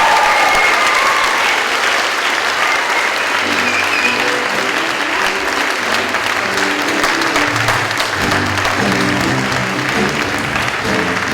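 Theatre audience applauding steadily at the end of a song. About three seconds in, instrumental music with a bass line starts up under the clapping.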